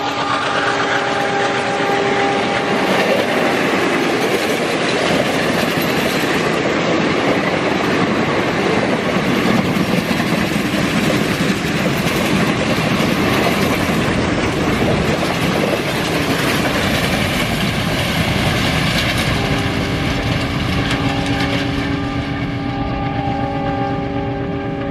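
An express train's coaches run past at high speed with a continuous rushing clatter of wheels over the rails, easing off slightly as the train draws away. At the start, the WDM3A diesel locomotive's multi-tone horn dies away, falling in pitch. From about twenty seconds in, a horn chord sounds again, held steady and lower in pitch.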